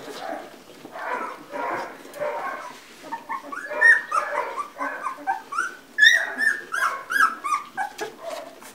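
Two-week-old Labrador retriever puppies whimpering and squealing as they jostle to nurse. There are softer whimpers at first, then from about three seconds in many short, high squeals that rise and fall in quick succession.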